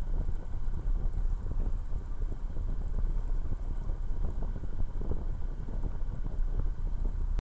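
Tecnam Astore light aircraft's engine and wind, a steady low rumble heard in the cockpit while taxiing, with irregular soft knocks throughout; the sound cuts off suddenly near the end.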